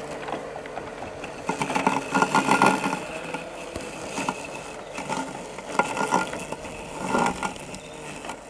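Flymo 1200R robotic lawnmower running as it climbs a steep grass slope on screw-spiked wheels, with a steady motor whine. Louder noisy stretches come about two, five and seven seconds in.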